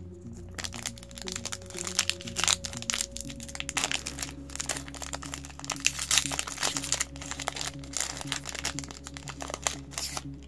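Foil booster-pack wrapper crinkling and tearing as it is opened and the cards are pulled out: dense crackling from about half a second in until near the end. Background music plays underneath.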